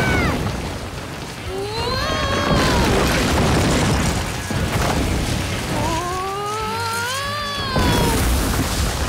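Cartoon sound effect of the ground rumbling and giant carrots bursting up out of the soil, a heavy continuous rumble with dirt spraying, under background music. Twice a pitched swoop rises and then falls over it.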